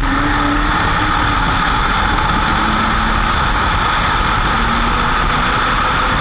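Drift car driving along the track, heard from a camera mounted at the front of the car: a steady rush of wind and road noise over the microphone, with the engine note faintly underneath, rising and falling a little in pitch.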